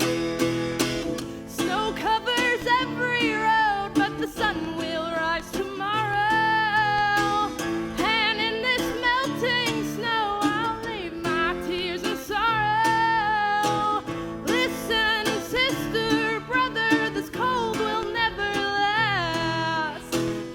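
A woman singing an old-western style song to acoustic guitar, the guitar plucked and strummed under long sung lines with a wavering pitch.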